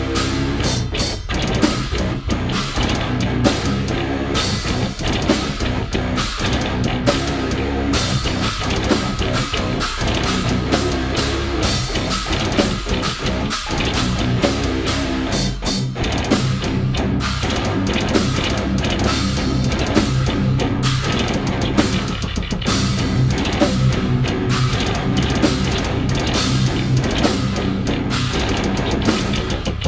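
Metalcore band playing full-on: a drum kit with fast drum and cymbal hits, a five-string electric bass and guitar, steady and loud.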